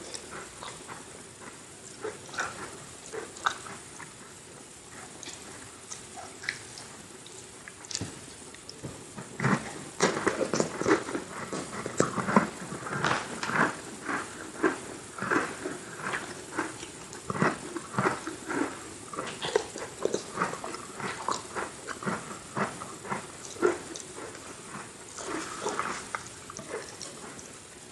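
Close-miked biting and chewing of crunchy Oreo sandwich cookies: scattered mouth clicks at first, then steady, dense crunching from about a third of the way in.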